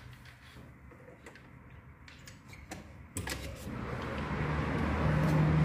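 A few light clicks and handling knocks, then about three seconds in, city street traffic comes up and grows steadily louder, with a low hum from passing vehicles rising toward the end.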